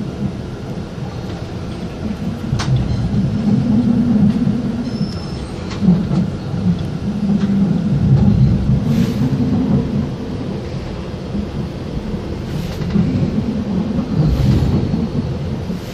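Inside a GYSEV Ventus train running on rails: a loud low rumble that swells and eases every second or two. There is a sharp click about two and a half seconds in and a few short hisses near the end.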